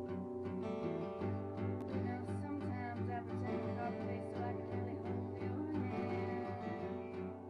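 Background music led by a plucked and strummed acoustic guitar, with a steady repeating pattern.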